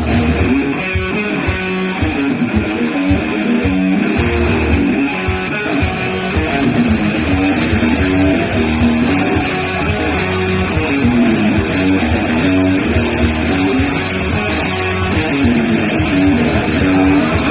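Rock music led by guitar, with bass, starting abruptly and running on steadily with a repeating riff.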